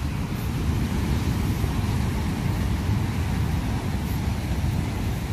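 Surf breaking on a rocky shore, heard as a steady low rumble with wind buffeting the microphone.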